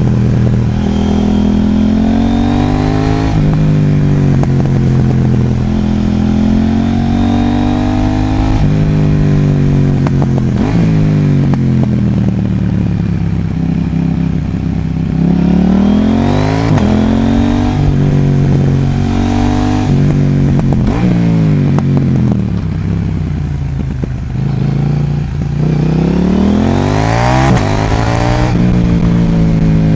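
KTM 790 Duke's parallel-twin engine, with a Sprint Filter P08 air filter and Mivv aftermarket exhaust, pulling through the gears while riding. Its pitch climbs and drops at each upshift several times, then falls and climbs sharply again as the bike slows and accelerates.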